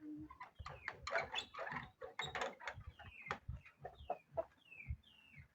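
Chickens clucking, with a run of short falling chirps in the second half and scattered scuffling clicks.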